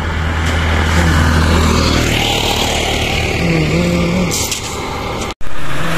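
Road traffic close by: the engine of a three-wheeled CNG auto-rickshaw approaching and going past, with road noise. The sound cuts out for an instant near the end.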